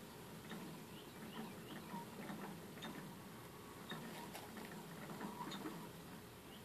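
Small pet rodents moving about a plastic cage: faint scattered clicks and patter with short high chirps, over a low steady hum.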